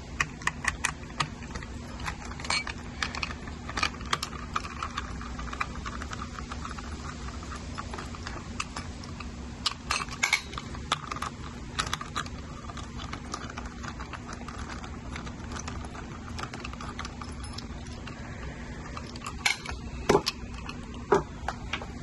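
Small irregular clicks and scrapes of a hand screwdriver backing screws out of the plastic lock housing on an e-bike battery lid, with handling of the case, and a few louder clicks near the end.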